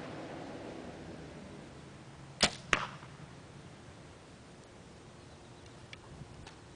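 A compound bow shot: a sharp snap of the string and limbs at release about two and a half seconds in, then a second crack about a third of a second later as the arrow strikes the target. A few faint clicks follow near the end.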